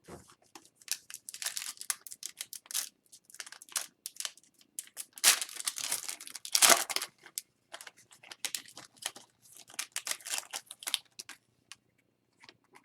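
Plastic foil wrapper of an Upper Deck hockey card pack crinkling and tearing as it is opened by hand, in two denser spells of crackling, with the cards rustling.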